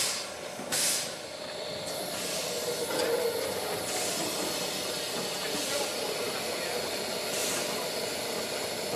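Narrow-gauge steam locomotives hissing steam: a sharp burst about a second in, then a steady hiss for the rest.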